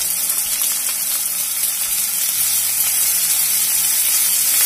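Chopped cabbage, capsicum, garlic and ginger sizzling in hot oil in a kadai over medium heat as they are sautéed: a steady, even hiss.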